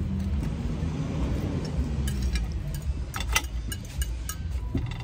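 Low rumble of a passing motor vehicle, swelling and fading over the first two seconds or so, with a few clinks of metal cutlery on plates about three seconds in.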